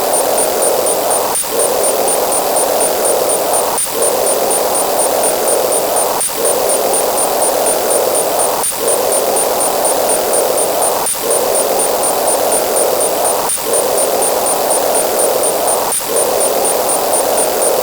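Loud, dense static-like noise, strongest in the middle range, dropping out briefly about every two and a half seconds, with a faint steady high tone over it.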